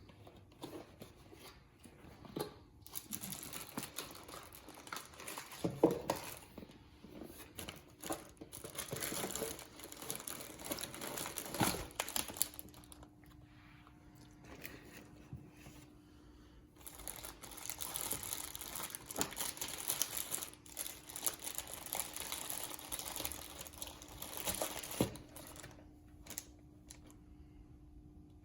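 Packaging of a boxed set of PC case fans being unwrapped and handled: two long stretches of crinkling and rustling with some tearing, broken by a few sharp knocks.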